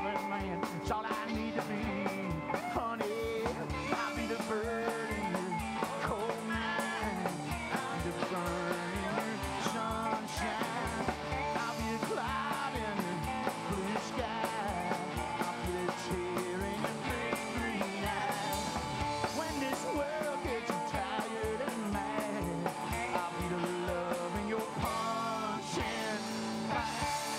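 Live rock-and-roll band playing: electric guitars, upright double bass and drum kit over a steady beat.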